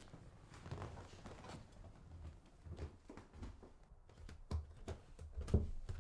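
Footsteps walking indoors towards the front door: irregular soft thumps and knocks, growing heavier towards the end, the loudest about five and a half seconds in.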